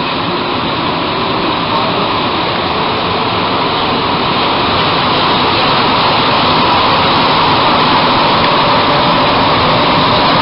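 Montreal Metro MR-63 rubber-tyred train heard from inside the car as it pulls out of a station and accelerates into the tunnel: a steady rush of motor and running noise that grows gradually louder.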